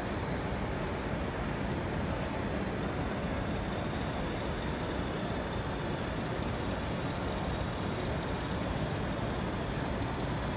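Steady, even background noise of a busy exhibition hall: a low, unchanging rumble with no clear tone or rhythm.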